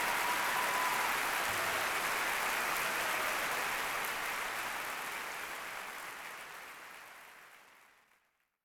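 Large concert audience applauding. The applause holds steady for about four seconds, then fades out to silence just before the end.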